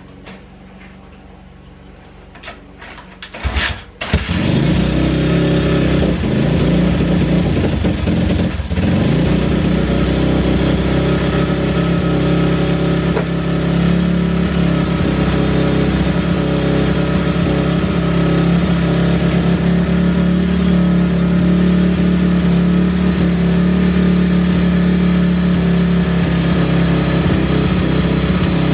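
A fire-damaged pit bike's single-cylinder four-stroke engine is cranked a few times, catches about four seconds in, stumbles briefly a few seconds later, then runs steadily: the burnt engine starts and keeps running.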